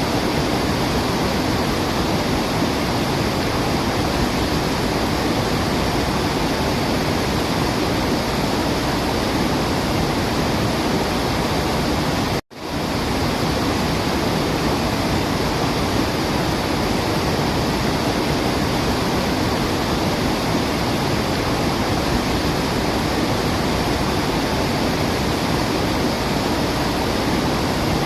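Waterfall rushing in a steady, dense roar of falling water, with a split-second dropout about halfway through where the sound briefly cuts out.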